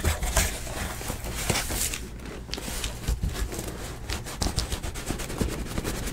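Corrugated cardboard case handled by hand: flaps and cardboard boxes rubbing and scraping against each other, with scattered light knocks and taps.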